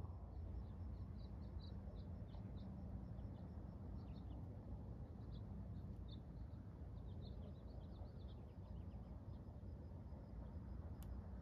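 Small birds chirping in scattered short, high notes over a steady low background rumble of ambient noise. The chirping thins out and stops about nine seconds in.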